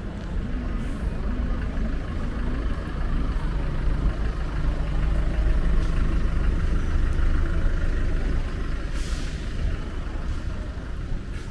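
Street traffic dominated by a heavy vehicle's engine running close by, loudest in the middle, with a short hiss of air about nine seconds in.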